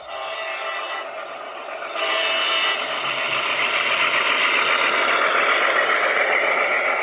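Garden-scale model train running on its track, with the electric motor and gearing whirring steadily. It gets louder about two seconds in.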